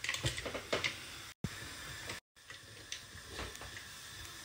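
WMF Perfect pressure cooker being closed: a quick run of clicks and light knocks from the steel lid and black plastic locking handle in the first second, then a few scattered clicks as the handle is locked.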